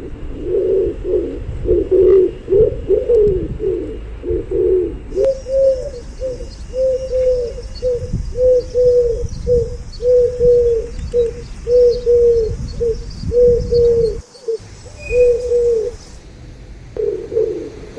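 Pigeons cooing: several low coos overlapping at first, then a steady run of short, arched coos at about two a second. The sound drops out suddenly for a moment about three quarters of the way through, and dense overlapping cooing returns near the end.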